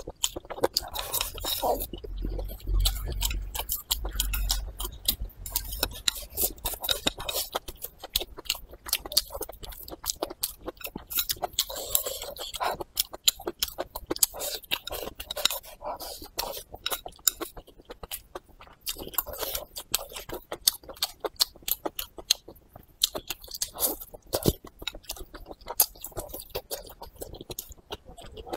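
Close-miked chewing of soft braised pork belly, rice and greens, with many wet mouth clicks and smacks and now and then a chopstick scraping the plate.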